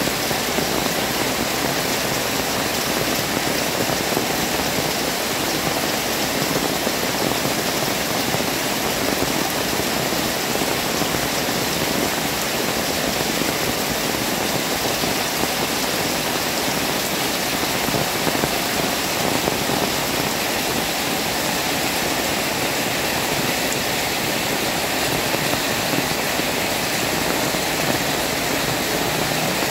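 Heavy rain falling steadily on a wet paved street and shop awnings: an even, unbroken rush of rain with no change in strength.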